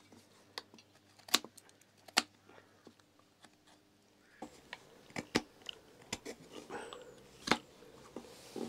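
Carving knife slicing shavings off the wooden handle of a kuksa: a series of short, sharp cuts at irregular intervals, sparse at first and coming closer together in the second half.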